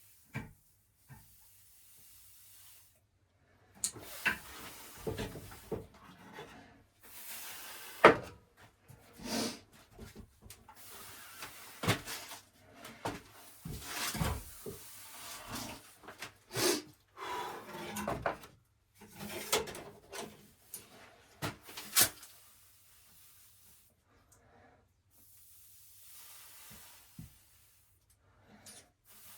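Hand work on a stuck water pipe fitting: irregular knocks, clicks and scraping or rubbing, with a few sharp clanks, the loudest about eight seconds in; the pipe is fitted too tight to come out easily. It goes quiet for the last several seconds.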